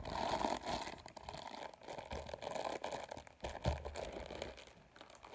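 Close-up crackly rustling and scratching, with scattered light taps, as fingers rub against the phone's microphone.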